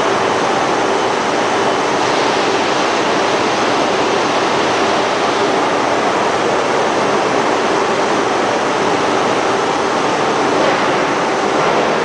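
Steady loud roar of forging-shop machinery, an even rushing noise with a faint steady hum under it and no hammer blows.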